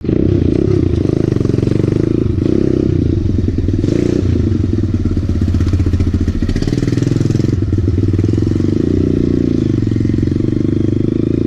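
Kawasaki KLX110 pit bike's small air-cooled four-stroke single running under way. The engine note rises and falls with the throttle as it rides.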